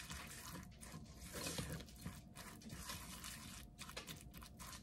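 Silicone spatula stirring a thick, wet batter of oats, cottage cheese and egg substitute in a glass bowl: faint stirring in uneven, repeated strokes.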